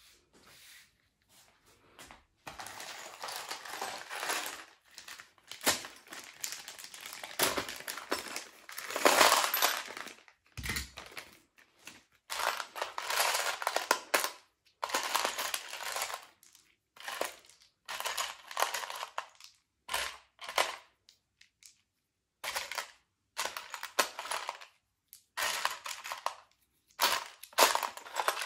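Loose metal screws and fittings rattling and clinking in a plastic tray as hands rummage through them, in repeated bursts of a second or two with short pauses between.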